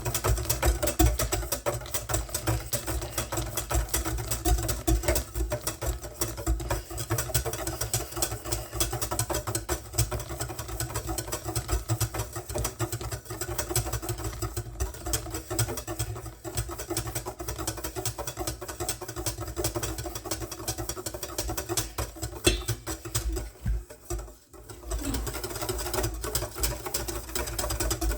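Electric mixer running in a bowl of egg yolks with a steady motor hum and rapid clicking of the beaters, tempering the yolks as hot cream is poured in by hand. It drops off briefly near the end, then carries on.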